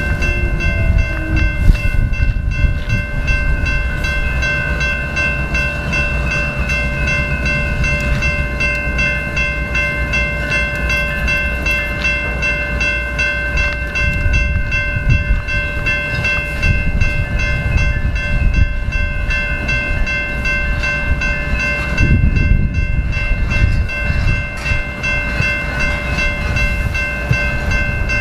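A switcher locomotive hauling hot metal bottle cars rumbles along the track while a railroad bell rings steadily and continuously.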